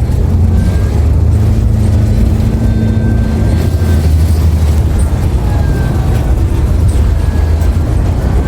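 Cabin sound of a 2016 New Flyer XDE60 hybrid articulated bus under way: a loud steady low drone from the diesel engine and hybrid drive, with a higher tone in the first few seconds and faint high whines that come and go. The rider finds this bus's motor and transmission sounds weird and off compared with other hybrid artics with Allison transmissions.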